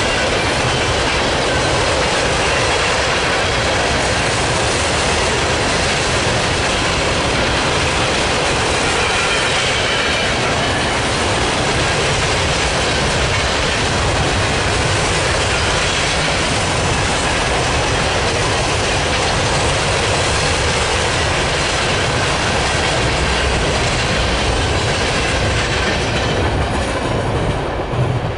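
Freight train cars (covered hoppers, tank cars, boxcars) rolling past on the rails with a steady, loud clatter of wheels on track. The sound falls off at the very end as the last car goes by.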